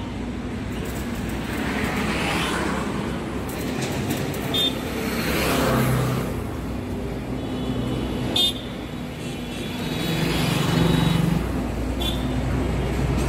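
Road traffic passing, with vehicles swelling by and fading every few seconds over a steady low engine hum. Two short horn toots, about four and a half and eight and a half seconds in.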